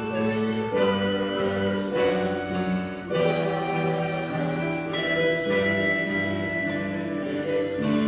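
A handbell choir playing a piece in rehearsal: chords of bells struck about once a second and left to ring into one another.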